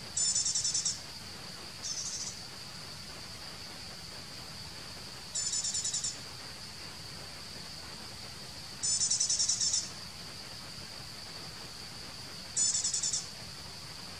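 Forest insect chorus: a steady high-pitched drone throughout, with five short, louder bursts of rapid high trilling over it.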